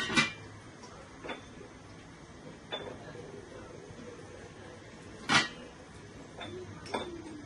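Metal lid clinking against a copper cooking pot several times: about five short sharp clinks, the loudest right at the start and about five seconds in.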